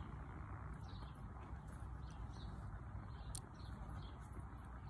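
Faint outdoor ambience: a steady low rumble with scattered faint bird chirps, and one sharp click a little after three seconds in.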